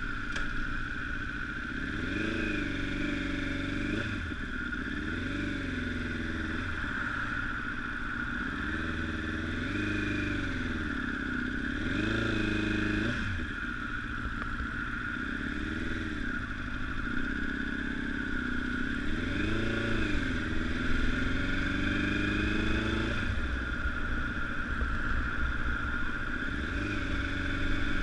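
Honda CBR1000RR's inline-four engine running on the move, its pitch rising and falling every few seconds as the throttle is opened and closed.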